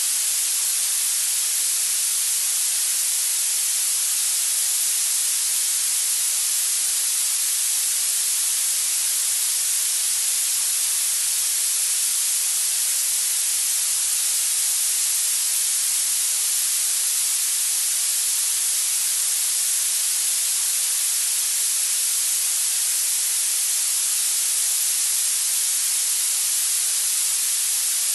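Steady, unchanging hiss of synthetic noise played as a tinnitus masking and retraining sound, weighted toward the high frequencies with little low rumble.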